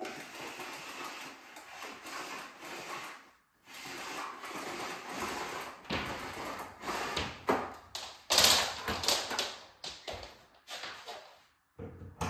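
Irregular rustling and handling noises with scattered taps and knocks, as objects are moved about by hand. The vacuum cleaner is not running.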